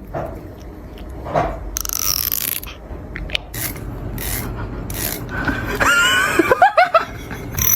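Teeth of a comb being rubbed: a rasping, ratchet-like scraping in several separate strokes. About six seconds in, a short wavering pitched voice sound cuts in.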